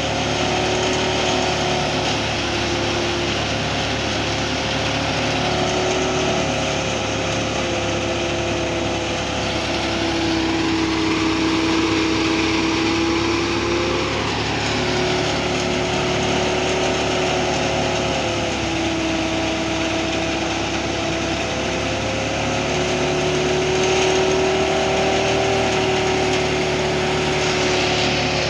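Truck-mounted rice threshing machine running steadily while rice straw is fed into it. Its hum holds a few steady tones that sag slightly in pitch now and then and recover, most clearly about ten seconds in.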